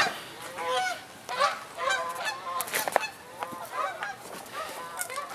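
A flock of geese flying overhead, honking over and over, with many short calls overlapping.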